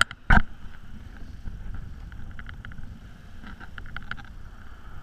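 Wind rumbling on the camera microphone over the wash of small surf breaking on the beach, with one sharp knock about a third of a second in and a few faint ticks later on.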